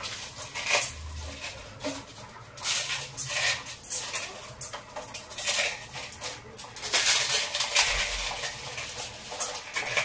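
A dry Maggi instant-noodle cake being snapped and crumbled by hand into a pan: irregular bursts of crunching and crackling.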